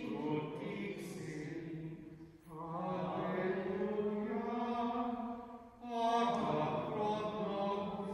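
A hymn sung slowly in long held notes, the phrases breaking off about two and a half seconds in and again near six seconds.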